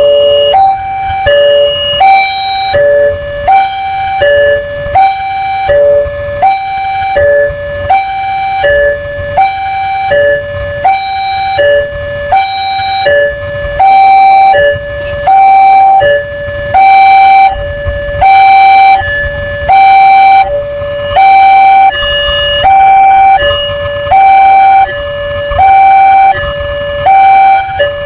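Railway level-crossing warning alarm sounding a loud, repeating two-tone high-low signal, about one high-low pair a second, over a low rumble.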